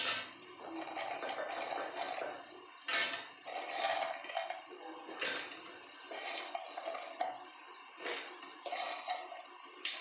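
Crisp fried chana-dal batter pieces dropped by hand into a stainless-steel mixer-grinder jar, with irregular clatters and rattles against the steel and a steady crunchy rustle between them.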